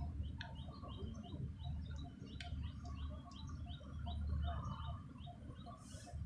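A bird calling in a steady run of short, repeated, slightly falling notes, about three a second, over a low, uneven rumble.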